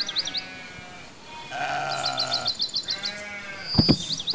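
Goats in a large herd bleating, several calls overlapping one after another. Runs of quick, high chirping notes from a bird sound over them, and two low thumps come near the end.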